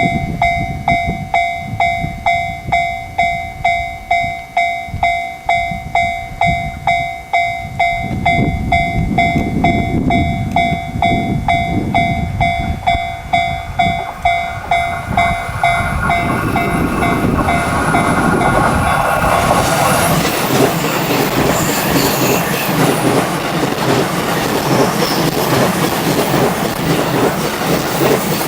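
Level-crossing warning bell ringing steadily about twice a second while an E353 series limited express electric train approaches, its noise building. From about twenty seconds in, the train passes close by, a loud continuous rush of wheels on rails that drowns out the bell.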